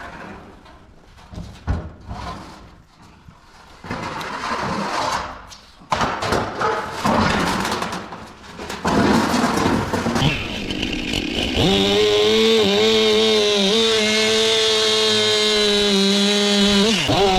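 Irregular clattering and rustling noise, then, about twelve seconds in, a small engine starts running at high speed, steady and loud. Its pitch briefly dips and recovers near the end.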